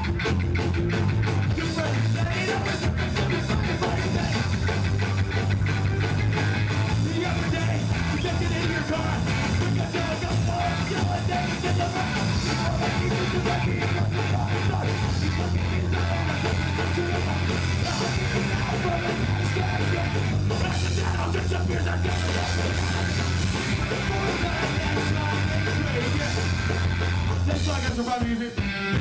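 Live punk rock band playing loud, electric guitars and drum kit, with a short break near the end.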